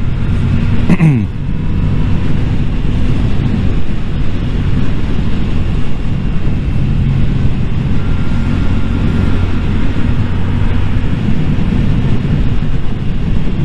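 Yamaha motorcycle engine running steadily under way, with wind rushing over the helmet camera's microphone. About a second in, the engine note falls sharply and the level dips briefly.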